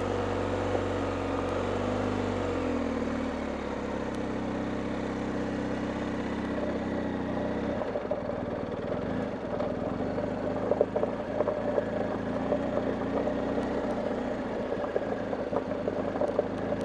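BMW R1250GS Adventure's boxer-twin engine running at low speed on a gravel forest road as the bike is turned around. Its pitch rises and falls in the first few seconds, holds steady, then changes about eight seconds in, with scattered light ticks from gravel under the tyres after that.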